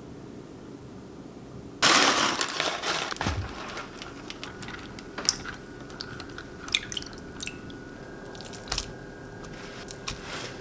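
Water rushing into a plastic tub of dried rice noodles about two seconds in, then small splashes and clicks as hands press the noodles down under the water to soak them.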